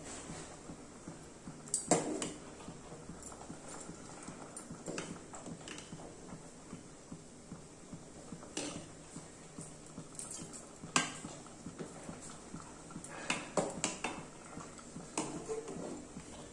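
Mustard fish curry coming to the boil in an iron kadai on a gas burner: scattered pops and clicks as bubbles burst, over a faint steady hiss.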